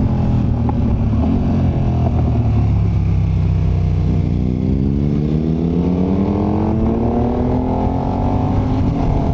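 KTM 1290 Super Adventure's V-twin engine heard onboard, running steadily and easing slightly, then accelerating from about four seconds in, its note rising steadily before levelling off near the end.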